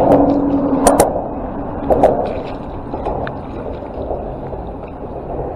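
Hooked white bass splashing and thrashing at the water's surface beside the boat, with water sloshing against the hull and a few sharp clicks around the first and second seconds.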